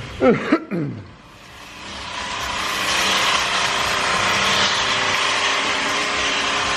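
Engine-powered string trimmer (weed whacker) cutting grass. Its engine note builds up over the first couple of seconds and then holds a steady high whine. Right at the start come two short, loud sounds that fall steeply in pitch.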